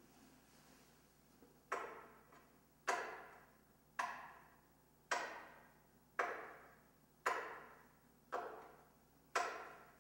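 Sharp knocks repeating evenly about once a second, starting near two seconds in, each followed by a ringing echo that fades over most of a second.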